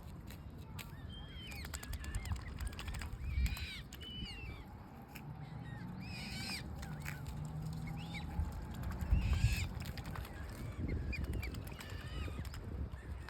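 Waterbirds calling at a lake: many short, high peeps and chirps, scattered throughout, over a low background rumble.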